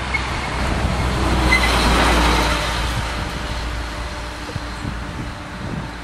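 A vehicle passing by: a low rumble and road noise that swell to their loudest about two seconds in, then fade away.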